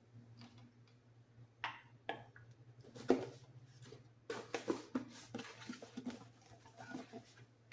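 Scattered light knocks and clicks of a small electric coffee grinder's cups and parts being handled, over a low steady hum.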